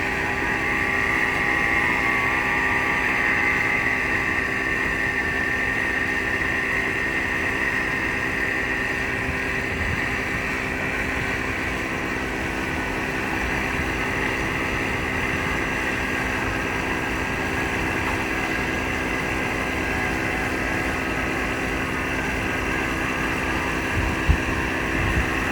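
An engine running steadily at an even speed, with a short knock near the end.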